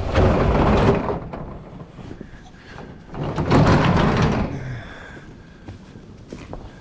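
Corrugated metal roll-up door rattling as it is hauled along its track, then a second loud rattling run about three seconds later.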